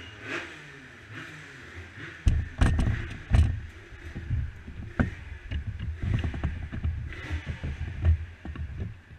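Handling noise close to a superkart's onboard camera: irregular clunks, knocks and clicks as a helmet and gear are set down in the stopped kart, with a race suit rubbing against the camera near the end. The engine is not running.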